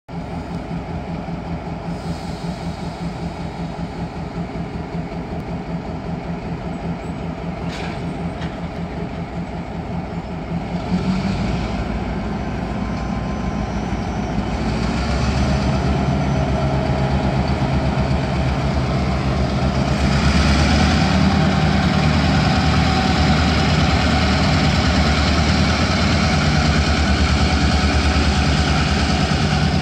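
Diesel freight locomotives running with a steady low engine drone. It grows louder about eleven seconds in and again about twenty seconds in as they throttle up and pull freight cars slowly. A brief click comes near eight seconds.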